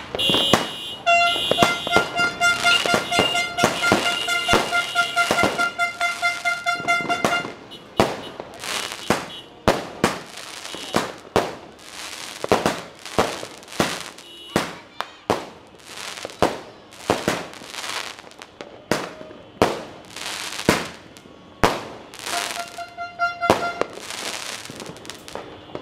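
Aerial fireworks going off: a dense run of sharp bangs and crackling bursts, roughly one to two a second. A steady high tone with overtones sounds alongside for the first several seconds and briefly again near the end.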